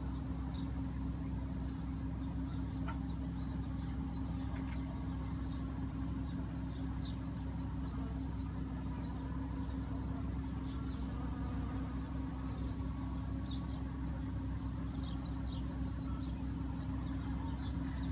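Steady low hum, with scattered faint bird chirps above it.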